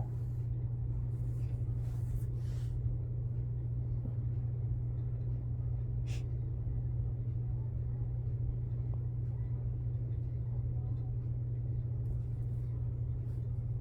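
Steady low background hum with no sleep noises from the dog, and a faint short click about six seconds in.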